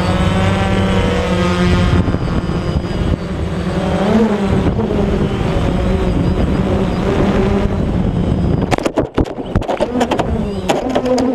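DJI Phantom quadcopter's propellers and motors whining steadily in flight, the pitch dipping and rising briefly about four seconds in. From about nine seconds in, a rapid run of sharp knocks and clatters breaks the whine as the drone strikes tree branches in a crash, and the motors keep buzzing.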